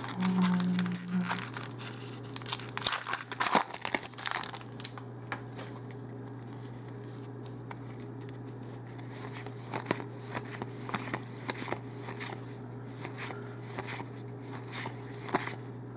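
Foil wrapper of a Magic: The Gathering booster pack being crinkled and torn open, with dense crackling for the first few seconds and scattered crinkles later on.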